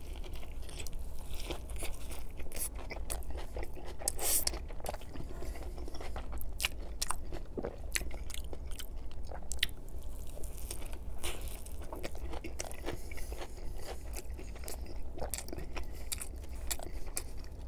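Close-miked biting and chewing of a Chicago-style hot dog in a toasted bun, with many small wet mouth clicks throughout.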